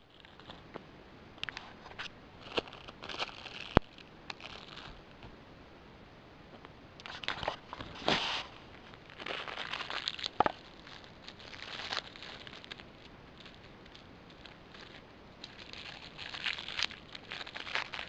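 Crinkling and crackling of a plastic padded mailer being handled, in irregular bursts with scattered sharp clicks and rustles.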